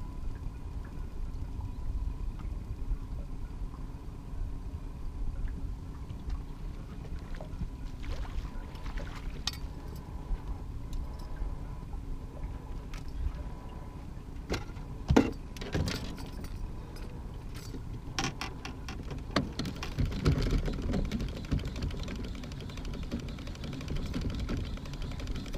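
Clicks, knocks and clatter of fishing gear being handled in an aluminium fishing boat, over a steady low rumble. One loud knock comes about fifteen seconds in, and there is a busier spell of clatter around twenty seconds.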